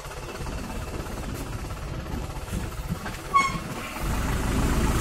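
Diesel engine of a Mitsubishi light truck loaded with sugarcane, running at low speed as the truck creeps forward, with a short high squeak about three seconds in. Near the end the engine gets louder as it is given more throttle.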